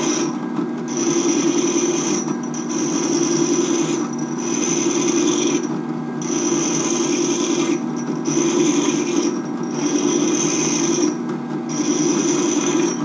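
A benchtop drill press runs steadily at low speed while a steel leather hole punch is held and rolled against it, grinding its dull cutting edge sharp. The grinding comes in about seven strokes of a second or so each, with short breaks as the punch is lifted off.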